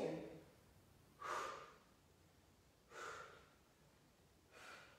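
A person breathing out forcefully three times, about one and a half seconds apart: the paced exhalations of someone working through repetitions of a strength exercise.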